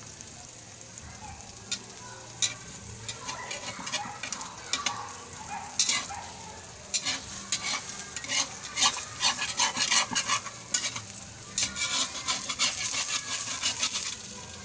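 Eggs with moringa leaves frying in hot oil in a pan, sizzling steadily with sharp crackles and pops. A metal spatula scrapes and works the pan, and the crackling grows denser and louder from about seven seconds in.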